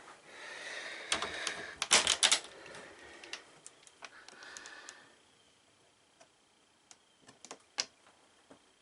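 A run of sharp clicks and knocks over rustling, loudest about two seconds in, then thinning to faint scattered ticks.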